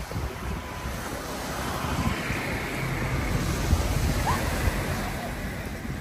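Sea waves washing on the shore, a steady rush, with wind buffeting the microphone.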